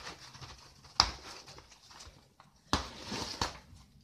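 Nylon tactical vest being handled: fabric rustling and scraping, with two sharp clicks about one second and just under three seconds in.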